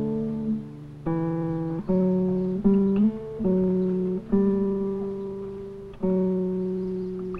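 Background music: a slow melody of single plucked acoustic-guitar notes, each ringing out and fading, over a steady low note.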